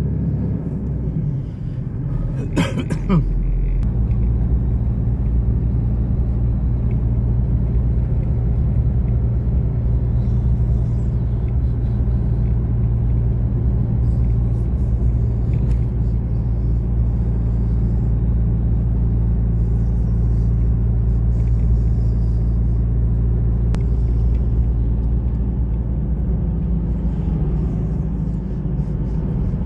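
Steady rumble of a car driving along the road, heard from inside the cabin as low engine and tyre hum. There is a short sharp knock about three seconds in.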